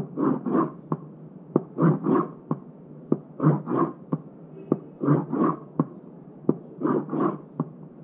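A pen tapping and scraping on a cardboard box to imitate the heart sounds of aortic stenosis. Each beat, about five of them, has a sharp tap for S1, a harsh scraping ejection systolic murmur that rises and falls, and a second tap for S2.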